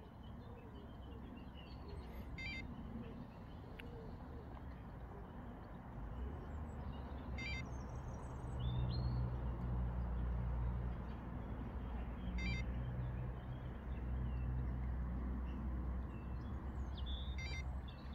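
Birds chirping over a steady low rumble that grows louder from about six seconds in, with a faint short beep about every five seconds.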